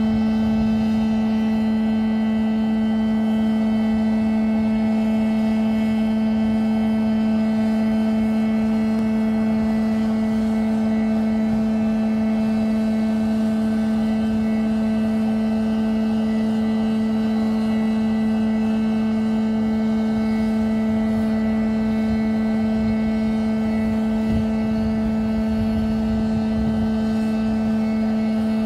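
Aircraft turbine running at a steady idle: a constant loud hum with evenly spaced overtones over a rush of air noise, holding one pitch throughout.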